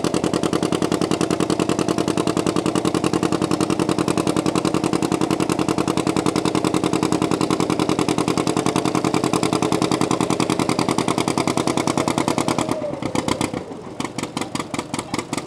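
Antique John Deere tractor engine running hard under load while pulling a weight-transfer sled, its exhaust beating in a steady, even pulse. About 13 seconds in, the engine throttles back and the beat slows and quietens as the pull comes to an end.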